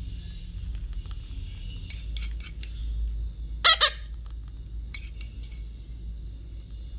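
Red-breasted parakeet chick giving two loud, harsh begging squawks in quick succession about halfway through as it is spoon-fed, calling for more food. A few light clinks of a metal teaspoon against a ceramic bowl come just before and shortly after.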